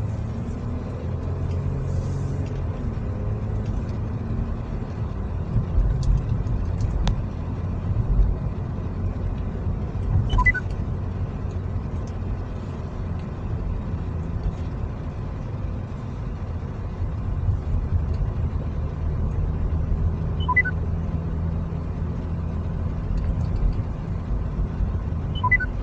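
A car driving, heard from inside the cabin: a steady low rumble of road and engine noise. A short electronic chime of a few quick high notes sounds three times, about ten seconds in, about twenty seconds in and near the end.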